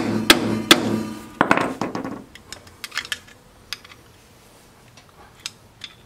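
Sharp metal-on-metal taps with a short ring, several in the first two seconds, then a few lighter clicks: a tool tapping a lock-washer tab over the front hub's axle locknut to lock it.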